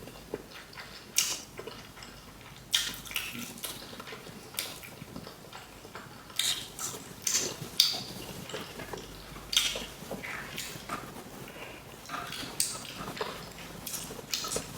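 Crunching and chewing of crispy fried food, in irregular crackly bites.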